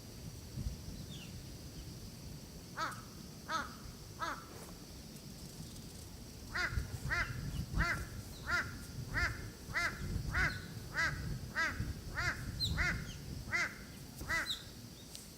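A crow cawing: three caws about three seconds in, then a long run of about a dozen evenly spaced caws from about six and a half seconds until near the end.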